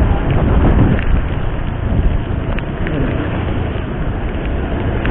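Heavy rain pouring down in a steady, loud hiss, mixed with wind noise on the microphone.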